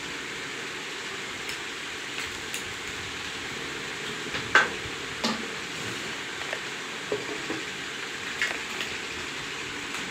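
Steady hiss with scattered light clicks and taps, the loudest about four and a half seconds in.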